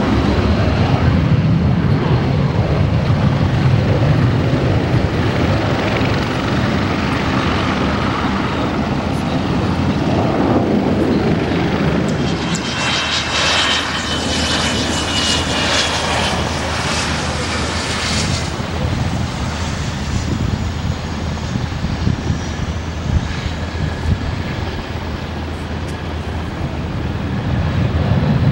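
Twin Honeywell TFE731-5R-1H turbofans of a U-125A jet running as it flies low past on approach with its gear down. A high turbine whine comes in about halfway through, falls slightly in pitch and fades a few seconds later, over a steady low engine rumble.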